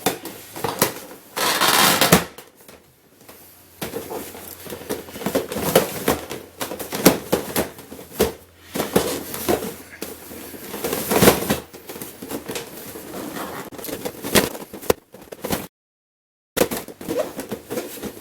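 Plastic clicks, knocks and scraping of a giant 30 cm 3x3 puzzle cube being handled, an edge piece pressed back in and its layers turned. The loudest scraping comes about a second and a half in, and the sound cuts out completely for about a second near the end.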